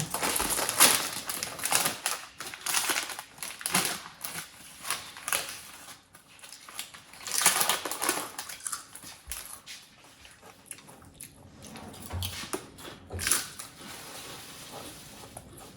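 Plastic bag of mayonnaise potato chips being opened and crinkled, then chips crunched while being chewed: an irregular run of crackles and crunches, busiest in the first half and thinning out later.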